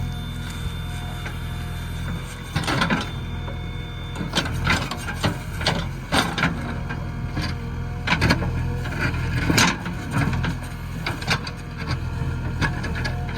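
Backhoe loader's diesel engine running steadily, with irregular knocks and clanks from the machine's working gear.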